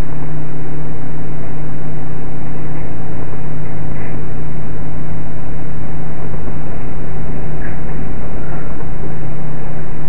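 Microwave oven running with a steady low hum and whir, heard loud through a security camera's microphone, with a couple of faint ticks.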